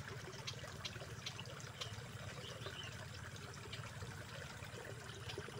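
Faint, steady trickle of water in a rice-field ditch, with a few light ticks.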